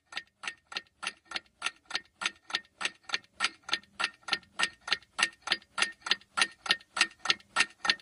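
Countdown-timer clock ticking sound effect. A sharp, even tick comes about four times a second and swells in loudness over the first few seconds.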